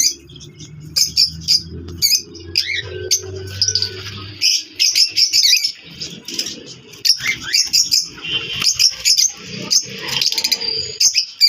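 Several small caged parrots, lovebirds among them, chirping and calling in short, sharp, high-pitched bursts. A low steady hum underlies the first four seconds or so, then stops.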